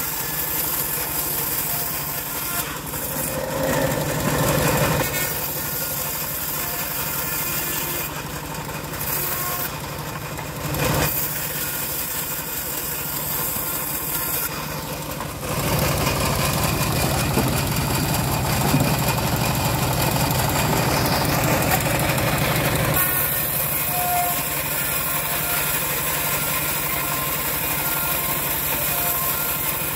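A homemade bandsaw mill runs with a steady mechanical hum, and its blade cuts through a dry acacia board with a louder rasping sound. The cutting comes briefly a few seconds in, and again for several seconds from about halfway.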